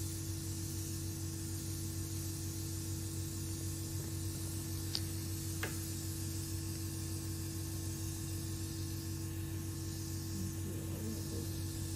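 Steady electrical mains hum over a low hiss, with two faint clicks about five seconds in.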